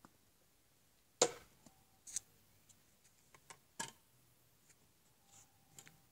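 A handful of sharp knocks and clacks as a stretching pole is handled and laid down on a paved path. The loudest comes about a second in. A couple of the knocks leave a short ringing note.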